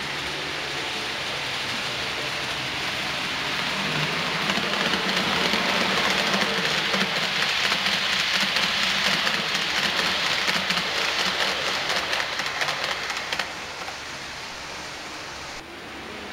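Model passenger train running past close by: a rushing hiss of metal wheels on model track with rapid fine clicking and a low motor hum. It builds over the first few seconds, is loudest through the middle, and drops off in the last few seconds.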